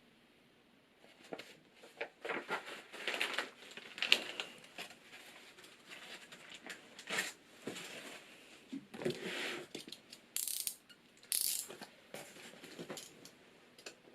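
Cardboard shipping box and paper being handled: irregular rustles, scrapes and light knocks, with two brief sharp high noises close together near the end.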